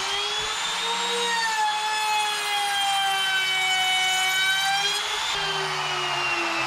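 Makita compact trim router running at full speed with a steady whine as its bearing-guided carbide bit cuts a test notch along the edge of a board. About five seconds in it is switched off, and the whine falls steadily in pitch as the motor winds down.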